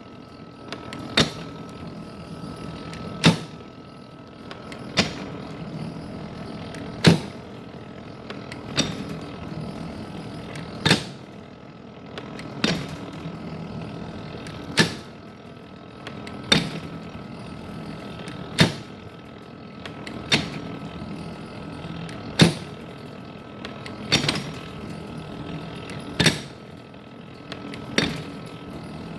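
Small vintage metal planer running, its table stroking back and forth with a sharp knock at each end of the stroke, about every two seconds, over a steady mechanical hum with a faint whine.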